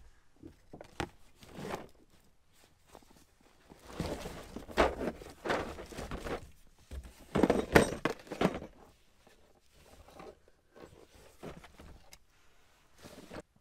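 Irregular thuds, knocks and rattling as a pickup's rear bench seat is worked loose and lifted out of the cab. The handling is busiest and loudest in the middle, then settles into a few scattered knocks.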